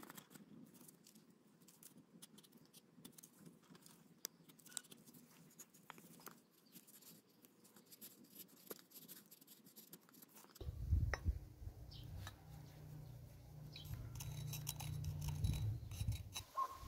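Knife blade scraping and shaving a new wooden axe handle: faint scratchy strokes and small clicks. About ten seconds in, a steady low rumble comes in under the strokes.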